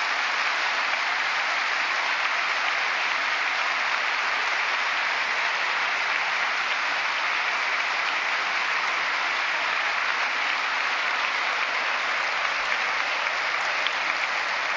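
Large seated audience applauding steadily: dense, even clapping that holds at one level throughout.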